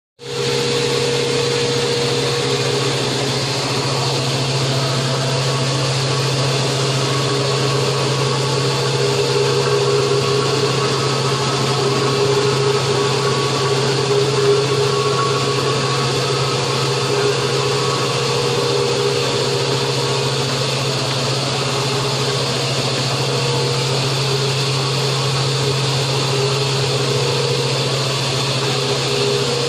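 Metal lathe running steadily, a constant low motor hum with a steady whine above it and no pauses.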